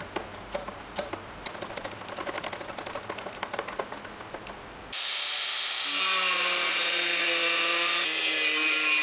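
A hydraulic bottle jack is pumped by its handle with many quick clicks as it clamps a flat steel bar. About five seconds in, an angle grinder with a cut-off disc starts abruptly and cuts into the steel bar with a loud, steady whine and grinding.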